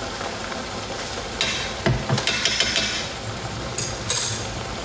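Meat sauce sizzling in a pot on the stove while it is stirred, with short scraping bursts and a sharp knock of a utensil about two seconds in.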